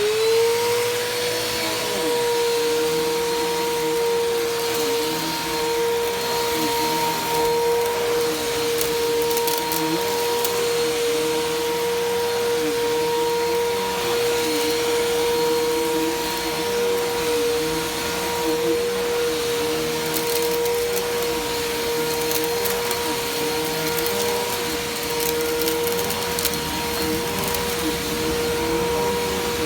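Bissell PowerForce Helix Turbo upright vacuum cleaner switching on, its motor spinning up at the start and then running with a steady high whine. Underneath, a lower tone wavers up and down regularly about every second and a half.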